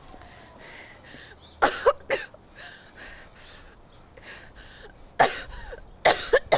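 A person coughing and gasping in short, harsh outbursts: three close together about two seconds in, and more from about five seconds on, with a fainter even pulsing in between.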